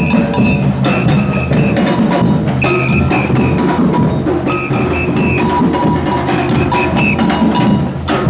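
A parade drum band playing a driving rhythm on large bass drums and other drums, with a short high ringing figure repeating every couple of seconds over the beat.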